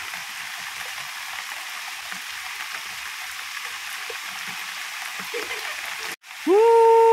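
Steady rain falling on a garden's plants and paving, an even hiss. About six seconds in it cuts off abruptly and music comes in with a loud, long held note.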